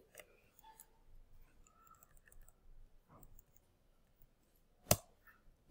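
Mostly quiet, with faint scattered small clicks and then one sharp computer click near the end, from the lecturer working his computer.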